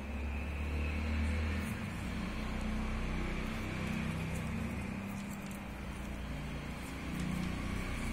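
Steady low mechanical hum and rumble, with faint crackles from black electrical tape being wound around a wire joint.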